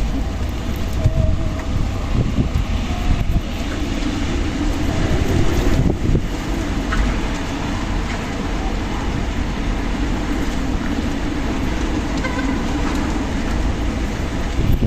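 Strong desert wind blowing steadily, with a heavy low rumble and a few faint brief whistling tones.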